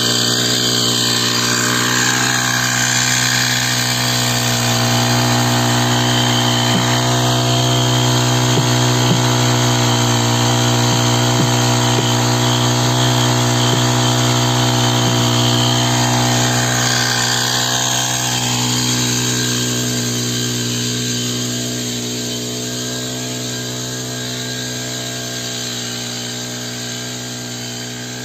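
Small engine-driven power sprayer running steadily at a constant pitch, pumping apple spray mix from a drum through its hose. It grows a little fainter over the last several seconds.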